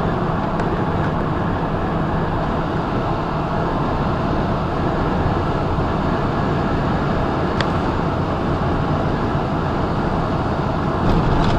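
Steady drone of a semi truck's diesel engine and tyres at highway speed, heard from inside the cab.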